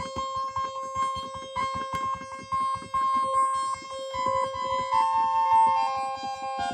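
Background music: a keyboard melody of held notes over a fast, steady beat.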